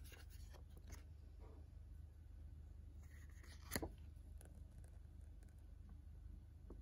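Faint rustling of a small paper booklet's pages being handled and turned, with one sharper paper snap about halfway through.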